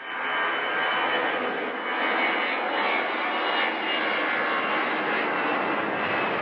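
Turbofan jet engines of an easyJet airliner running steadily: an even rush of noise with a thin high whine on top.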